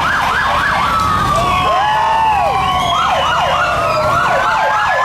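Several emergency-vehicle sirens sounding at once, with quick yelp sweeps of about five a second over slower rising and falling wails.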